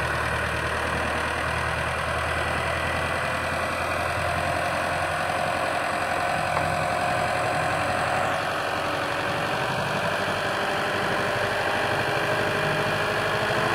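Diesel engines of two farm tractors, a Belarus 510 and a Massey Ferguson 385, running steadily while chained back to back in a tug-of-war pull, getting a little louder near the end.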